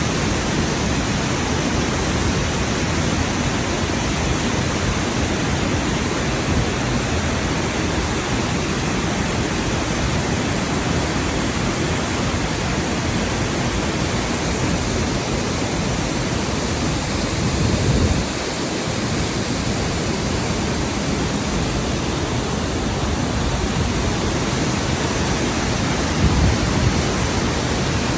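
Waterfall: a steady, loud rush of falling water, with a brief low rumble twice.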